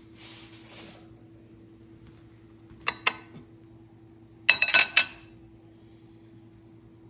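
Metal spatula clinking against a ceramic plate as a baked fish roll is slid onto it: a couple of clinks about three seconds in, then a louder quick rattle of clinks about a second and a half later, over a low steady hum.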